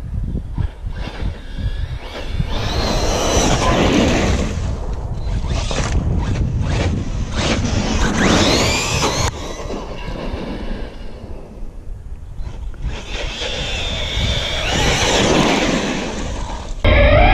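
Electric 1/8-scale RC truggy (Team Corally Kronos on a 4S battery) making about three passes, its brushless motor whining up and down in pitch as it speeds by, with tyres hissing and scraping through wet gravel and puddles. Wind rumbles on the microphone throughout.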